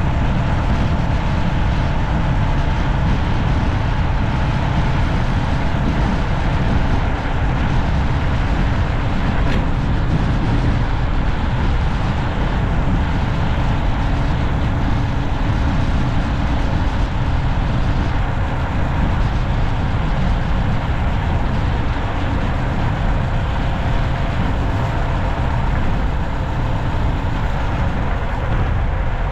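Steady road noise of a car driving along a city street: a continuous low rumble of tyres and wind that holds at an even level.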